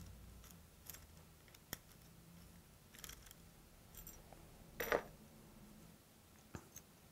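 Faint small clicks and metallic taps as a screwdriver backs the screws out of a scope ring and the parts are handled. The loudest click comes about five seconds in.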